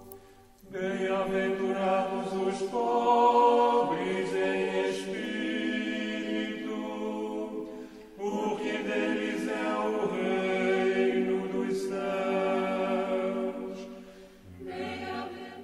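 Choir singing unaccompanied chant in long held phrases, with a brief break about eight seconds in.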